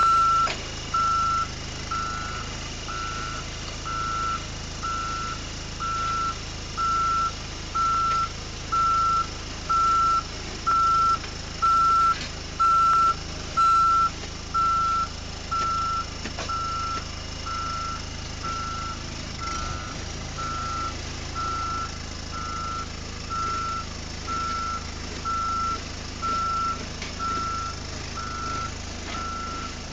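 Reversing alarm on a Tucker-Terra 1000HD tracked snowcat, beeping about once a second as the machine backs off a trailer, over the steady drone of its engine. The beeps are louder in the first half.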